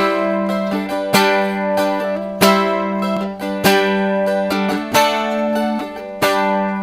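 Live band playing an instrumental passage: strummed guitar chords struck about once every 1.2 seconds over a steady held low note.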